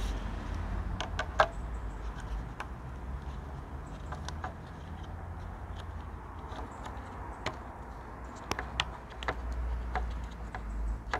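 Scattered small plastic clicks and taps as the glass of a Mitsubishi 3000GT door mirror is handled and its heater wire connectors are pushed on by hand, with a low steady rumble underneath.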